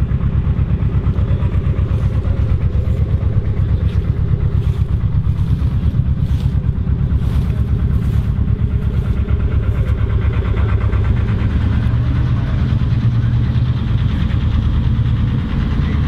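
Massey Ferguson 35 tractor engine running steadily with a low, even pulsing beat, driving a trailed JF MS70 combine harvester, with some lighter rattling from the machinery.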